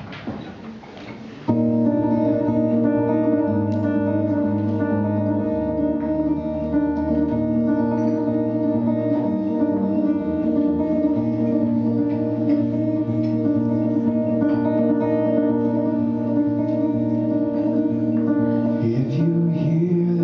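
Guitar playing the opening chords of a song live, starting about a second and a half in, with steady held chords that change every few seconds.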